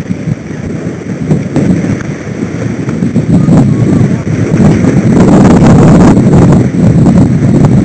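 Wind buffeting the microphone of a camera on a sailing boat under way, with water rushing past the hull; it grows louder about five seconds in.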